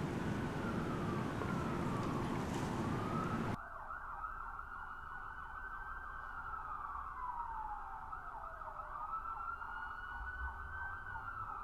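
Emergency-vehicle siren wailing, its pitch sliding slowly up and down, about one rise and fall every five seconds. The outdoor background noise under it cuts out abruptly about three and a half seconds in.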